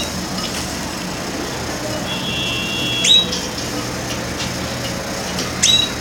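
Pet canaries calling: two short, high chirps that sweep downward, about three seconds in and again near the end. Under them runs a steady low hum.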